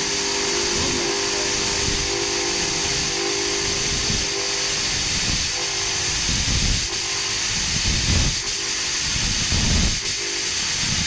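Fog machine running and pushing out fog with a steady, loud hiss, with a few low thumps in the second half.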